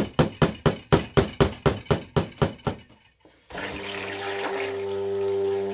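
A fast, even run of sharp knocks, about four a second, that stops about three seconds in. After a brief pause, background music with long held notes starts suddenly.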